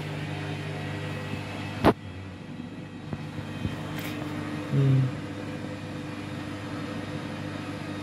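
Front-loading washing machine running with an overloaded drum of wet laundry turning: a steady motor hum, a sharp knock about two seconds in, and a brief louder low hum just before five seconds in.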